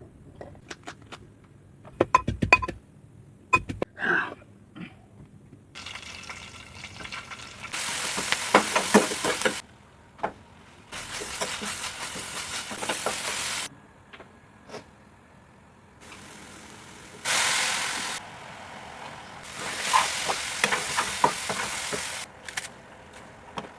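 Kitchen cooking sounds in short cut-together spells: a few clicks and knocks, then several bursts of steady hissing and sizzling from food cooking in a hot pan, each cutting off abruptly.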